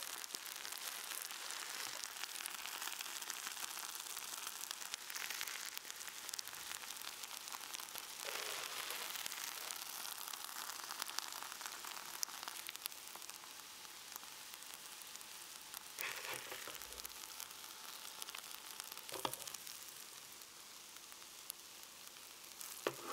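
Fried rice sizzling steadily on a hot electric hot plate, with a wooden spatula now and then scraping across the plate as it scoops rice into a bowl.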